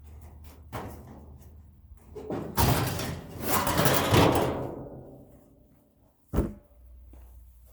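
Sheet metal of a furnace casing rattling and scraping loudly for about three seconds as it is worked loose, fading out, then a single sharp metallic bang.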